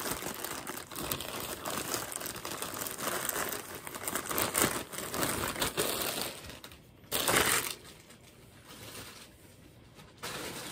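A plastic shipping mailer bag crinkling and rustling as it is worked open and a garment is pulled out of it. A short, louder burst of rustling comes about seven seconds in, and the sound is quieter after that.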